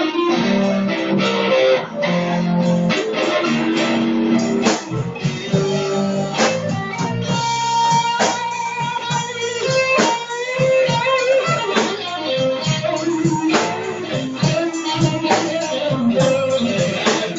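Live band playing an instrumental blues: electric guitar playing lead lines with string bends over bass guitar and a drum kit.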